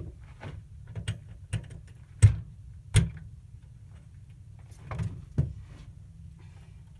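A key working in a door lock, with the door being tried: a series of sharp clicks and knocks, the two loudest a little past two and three seconds in.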